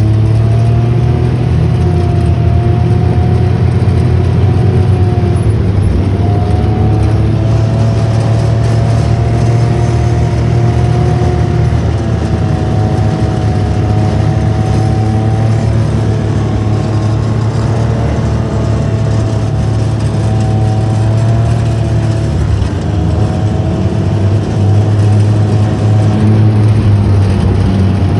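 Utility vehicle's engine and drivetrain running steadily while driving over groomed snow, a constant low hum with a whine that wavers gently in pitch.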